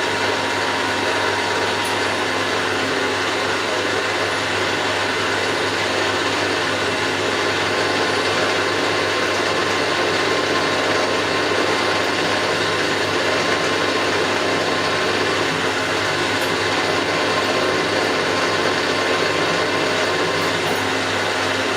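Milling machine running steadily, its spindle motor and drive making an even mechanical whir with a low hum, while a hole position is spotted on the plate.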